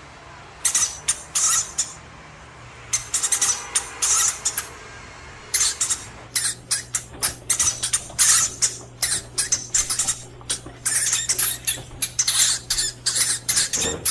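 Hamster making a rapid, irregular series of short high squeaks and scratchy chatters.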